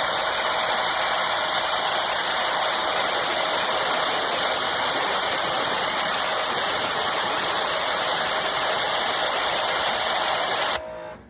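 Giraffe Tools G30 electric pressure washer spraying a jet of water, a steady rushing spray with a steady tone under it. It cuts off suddenly near the end.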